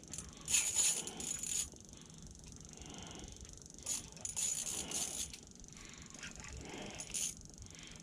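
Fishing reel buzzing in several short bursts while a fish is being fought on the line through an ice hole.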